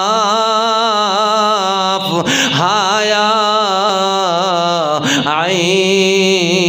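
A man chanting Quran recitation in a melodic, drawn-out style, holding long wavering notes. The voice breaks off briefly about two seconds in and again about five seconds in.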